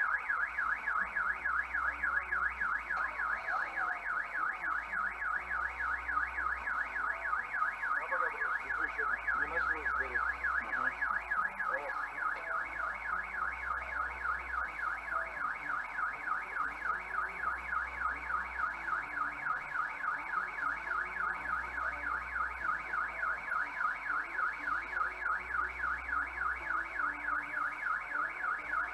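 Car alarm siren sounding continuously in a fast, evenly repeating up-and-down warble.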